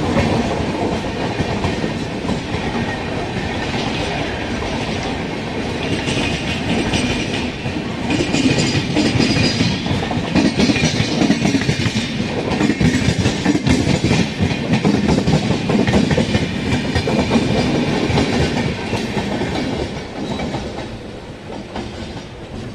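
Express passenger train coaches rolling past along a station platform, wheels clattering over rail joints in a steady clickety-clack under a dense rumble. It eases off somewhat near the end.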